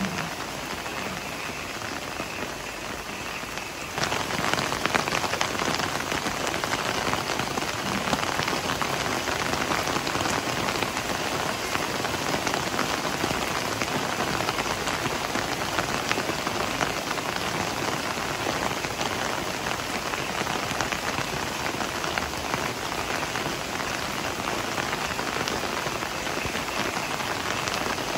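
Heavy rain falling steadily, a dense even patter that steps up in loudness about four seconds in and then holds.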